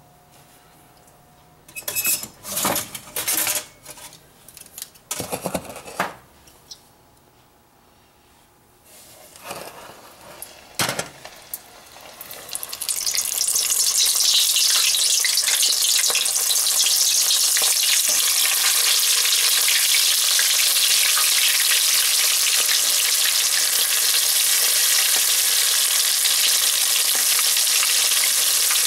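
A few separate knocks and clatters, then small floured fish deep-frying in a pot of hot oil. A loud, steady sizzle swells in about twelve seconds in as the fish go in, and it keeps on while they are stirred.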